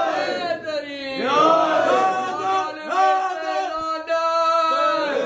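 A man's voice chanting melodically in Arabic, its pitch sliding through ornamented phrases and then settling into long held notes.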